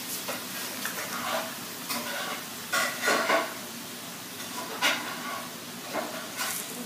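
Light rustling and a few scattered soft knocks over a low hiss: the game's plastic mat and cardboard spinner being handled on a tile floor.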